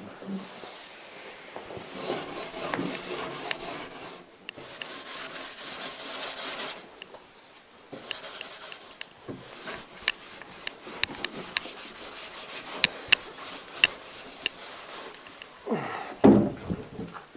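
A rag rubbing paste wax onto the wooden runners of a plywood crosscut sled in long strokes, because the runners are still a little tight in the saw's slots. Scattered light ticks follow, and a louder wooden knock comes near the end as the sled is moved.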